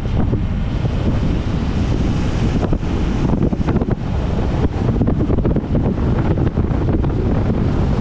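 Wind buffeting the microphone over the steady low rumble of a truck on the move.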